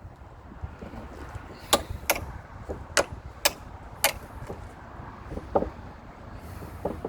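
A hammer knocking on a seized coach bolt in an old wooden gate: five sharp knocks in the middle stretch, over a steady low rumble.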